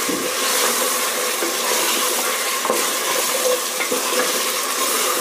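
Chicken pieces and ginger-garlic paste frying in hot ghee in a stainless steel pot, a steady sizzle as they are stirred, with a few faint knocks of the spoon against the pot.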